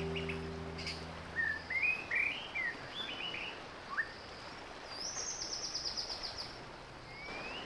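Songbirds calling: scattered short chirps, then a fast high trill of repeated notes about five seconds in, and a short rising whistle near the end. An acoustic guitar piece fades out in the first two seconds.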